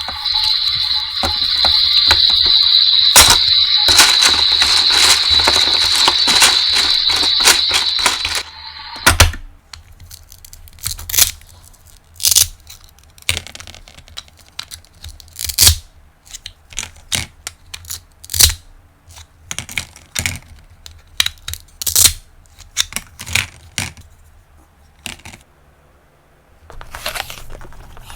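Toy apples being handled and cut: sharp crunching clicks and taps, spaced a second or so apart. For the first eight seconds or so a steady high-pitched whine runs under a fast string of clicks, then stops suddenly.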